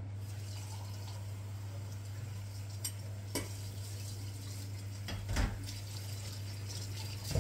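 Kitchen dishes and utensils clinking and knocking a few times, about three seconds in and again just after five seconds, over a steady low hum.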